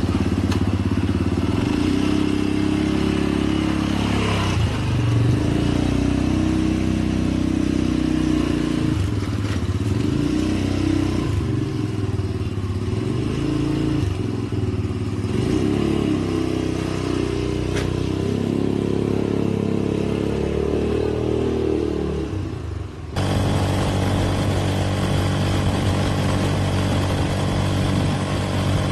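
Motor tricycle's engine running on the move, its pitch rising and falling as the speed changes. About three-quarters of the way through the sound changes abruptly to a steadier engine note.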